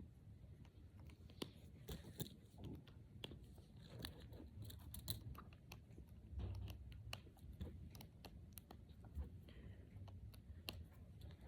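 Brain Flakes, small plastic interlocking discs, clicking faintly and irregularly as they are handled and pushed together one by one.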